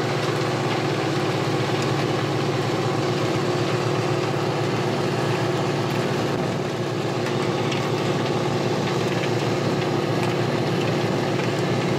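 A purse seiner's engine running steadily under way: a constant, unchanging drone, with the rush of water along the hull.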